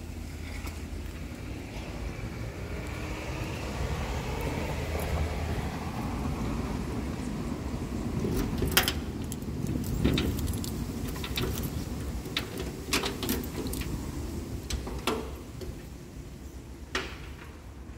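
A bunch of keys jangling and a key clicking and turning in a door's cylinder lock, a series of sharp clicks through the second half. In the first half, a car goes by in the street.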